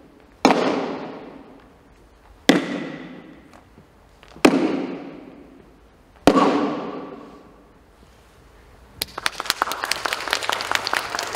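Hand-held Eisa shime-daiko drum struck with a single stick, four strong strokes about two seconds apart, each ringing out with long hall reverberation. Near the end, applause starts.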